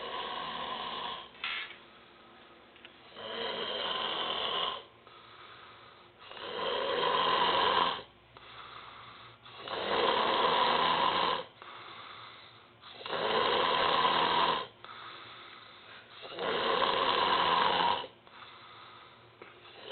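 A person snoring in heavy sleep after drinking. There are six loud snores, one about every three seconds, each about a second and a half long, with softer breathing between them.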